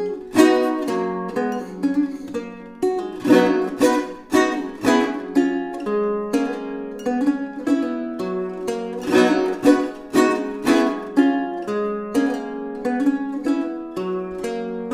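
Five-course baroque guitar playing a chaconne, with strummed chords and plucked notes in a steady dance rhythm and no deep bass notes.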